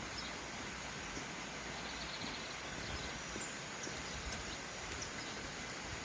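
Steady rushing of a small stream, with a few faint, brief bird chirps scattered through it.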